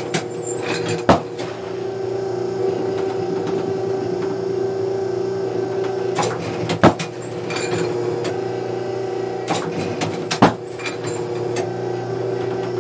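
Automatic trap clay-target thrower humming steadily, with clusters of light mechanical clicks and clacks and three sharp, loud cracks about a second in, about seven seconds in and near ten and a half seconds.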